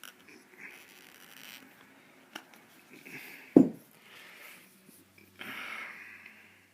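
Handling noise as a leather belt and the recording phone are moved about: scattered light clicks and rustling, with one short, loud thump about three and a half seconds in.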